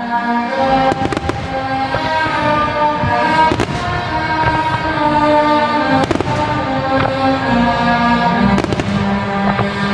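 Fireworks shells bursting with sharp bangs every second or few during a display finale, over loud music with long held notes.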